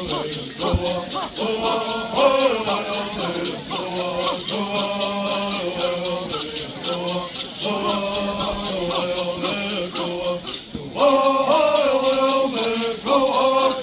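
Bird song: voices singing in unison over steadily shaken gourd rattles, with a short break about ten seconds in before the next verse starts.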